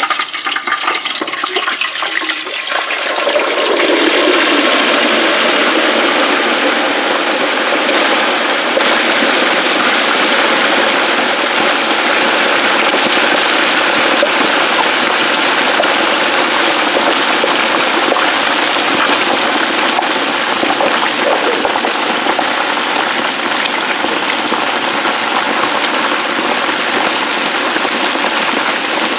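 Peanut oil at about 350 degrees bubbling and sizzling hard as a whole turkey is lowered into the deep-fryer pot. The sizzle builds over the first few seconds as the bird goes under, then holds steady.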